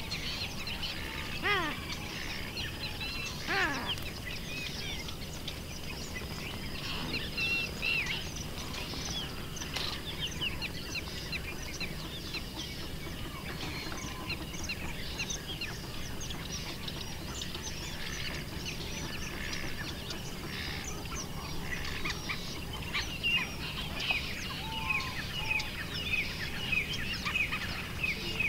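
Many small birds chirping in a busy, overlapping chorus, with two louder, lower bird calls at about one and a half and three and a half seconds in, and the chirping growing denser near the end.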